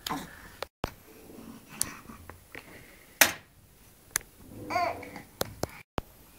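Nine-month-old baby babbling and giving short vocal sounds, with a few sharp knocks and clicks in between.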